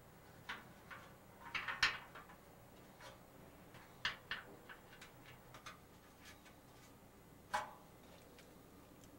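Irregular small clicks and taps of small fittings being pressed into the holes of a Coleman propane stove's painted sheet-metal case, with two louder knocks about two seconds in and near the end.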